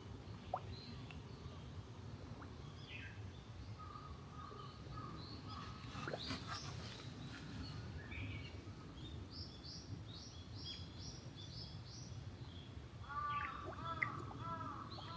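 Birds calling over a low, steady outdoor hum: scattered high chirps, a quick run of short high notes around the middle, and a series of lower repeated calls near the end.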